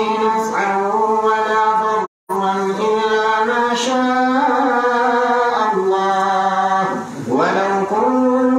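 A man's voice chanting Quranic verses in melodic tajweed style, holding long drawn-out notes that glide up and down. The sound cuts out briefly about two seconds in.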